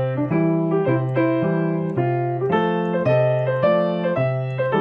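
Piano playing a short blues phrase, melody over repeated left-hand bass notes, in uneven long-short pairs with the first quaver of each pair held too long: an over-dotted swing feel, which the player calls still wrong.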